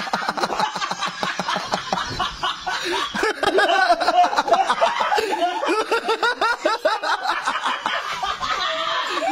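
Two men laughing hard, in quick repeated peals of laughter that run on without a break.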